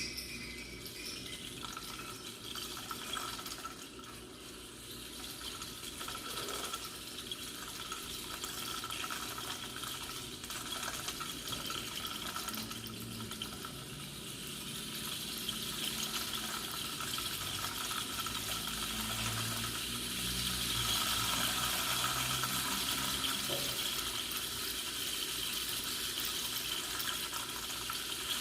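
A steady rushing, water-like noise that slowly grows louder, with faint low tones underneath.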